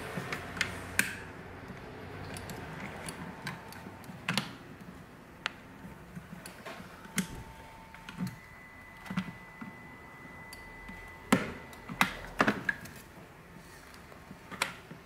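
A flat-blade screwdriver pries at the seam of a plastic infrared-thermometer housing, making scattered clicks, taps and small plastic snaps. A cluster of louder snaps comes about eleven to twelve seconds in.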